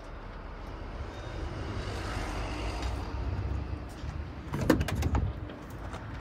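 Hino FM 2628 truck's diesel engine idling with a steady low rumble. A short cluster of sharp knocks comes about two-thirds of the way through.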